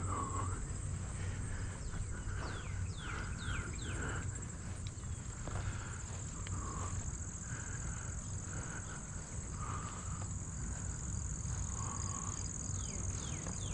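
Crickets or other insects chirring in a steady high-pitched chorus, with footsteps walking through grass and a few short falling chirps.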